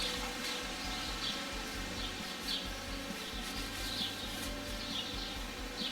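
Birds chirping faintly, short high calls every second or so, over a steady background hum.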